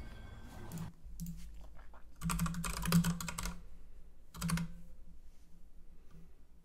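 Typing on a computer keyboard: a few scattered key presses, then a quick run of keystrokes about two seconds in and a short burst a little later.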